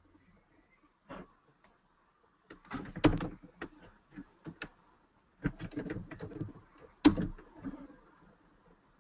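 Computer keyboard typing: two short flurries of key clicks, each with a louder keystroke.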